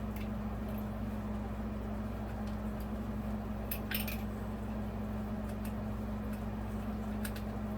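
A few sharp clicks and clinks from small parts being handled while a ceiling fan light kit is fitted, over a steady low hum.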